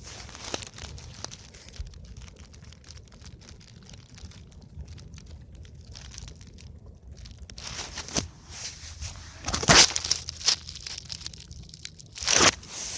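Wood fire crackling, with many small snaps throughout and a few louder crackling bursts toward the end.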